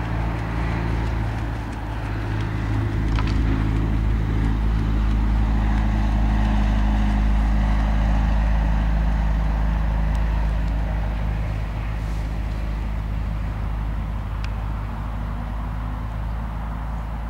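Steady low hum of an engine running, swelling through the middle and easing off toward the end.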